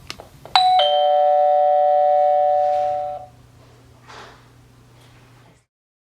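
Honeywell RCWL330A portable wireless door chime sounding a two-note ding-dong about half a second in, after a few small clicks. The notes ring together for about two and a half seconds and then fade, over a faint steady hum.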